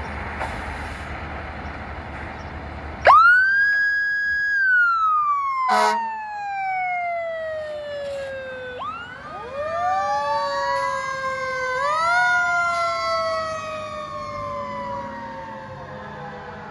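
Fire truck engine rumbling, then about three seconds in a siren winds up sharply to a high wail, holds briefly, and winds slowly down. There is a brief sharp blast near six seconds. From about nine seconds in, several siren wails overlap, rising and falling.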